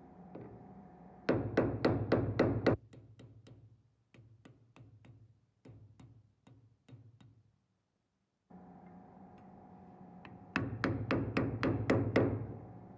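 Hammer tapping on metal, most likely driving out the cleaver's handle pins with a punch. It comes in quick runs of about four sharp strikes a second, with softer, slower taps between, over a steady hum that cuts out in the middle and comes back.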